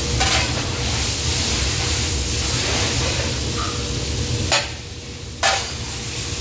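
Shredded vegetables sizzling in a large wok over high heat while a metal spatula stirs them, with sharp scrapes of the spatula against the wok about half a second in and twice near the end. A low steady rumble runs underneath.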